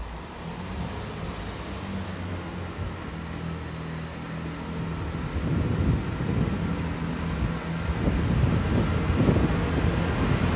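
Class 166 diesel multiple unit pulling away from a station, its diesel engines running with a steady note that grows louder as the train draws near and passes close by. A heavier low rumble joins from about halfway in.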